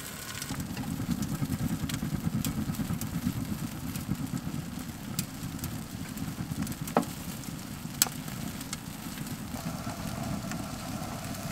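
Wood fire burning in a small glass-windowed tent stove: a steady low rumble of the burn with a few sharp crackles, the loudest two about seven and eight seconds in.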